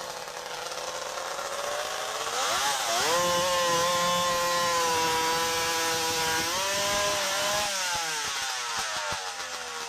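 Two-stroke chainsaw engine revved up to a steady high speed, held there for a few seconds, then dropping back and slowly winding down.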